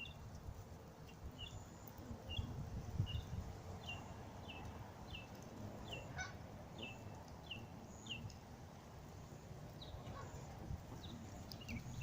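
Canada geese calling: a long run of short, high, falling calls about two a second, over a faint low rumble of wind.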